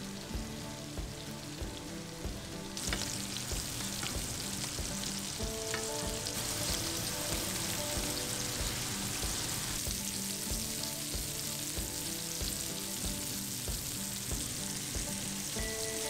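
Seasoned wahoo fillets sizzling in butter and olive oil in a frying pan. The sizzle grows louder about three seconds in.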